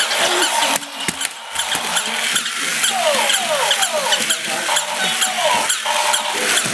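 Battery-powered walking toy animals working on a hard floor: small motors and gears whir and tick with a fast rattle, and a run of short falling squeaks fills the middle.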